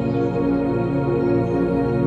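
Background music: slow ambient music of long held chords.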